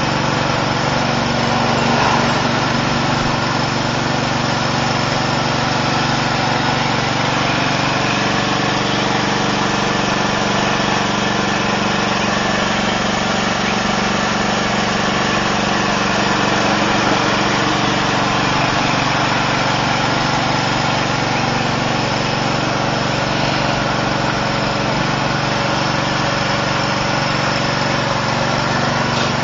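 Riding lawn mower's small engine running steadily under load while it tows a boat on its trailer.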